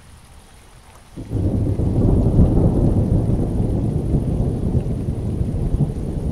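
Rain falling, with a loud, low rumble of thunder that comes in suddenly about a second in and keeps rolling.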